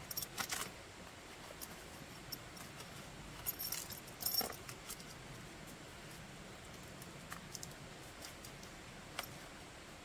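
Gear being handled: a spray canister pushed into a nylon belt holster, giving light clicks and bright metallic clinks. There is a cluster near the start, a louder run of clinks about three to four and a half seconds in, and a single click near the end.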